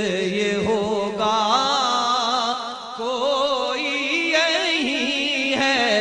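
Male voice singing a naat, drawing out long held and ornamented notes with no clear words. A steady held note gives way about a second in to a rising, wavering melismatic line.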